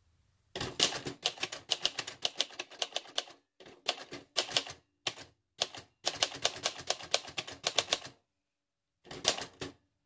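Manual typewriter being typed on: a 1966 Singer Professional T-62, a rebadged Royal Safari. Quick runs of typebars striking the platen are broken by short pauses, and a last short run comes near the end.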